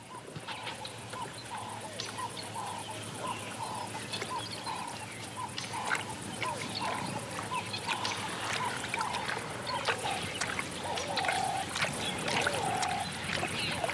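A young male lion lapping water from a shallow pool: a steady run of wet laps at about two a second, with birds chirping around it.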